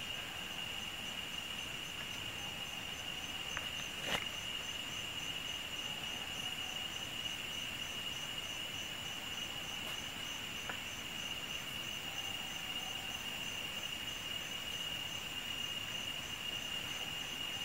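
Rainforest insects: a steady high-pitched drone with a faster, even pulsing chirp above it at about three a second. A single sharp click about four seconds in.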